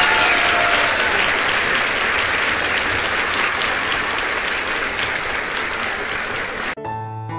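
Crowd applause, an edited-in sound effect greeting a successful shot, which cuts off suddenly near the end as soft piano music begins.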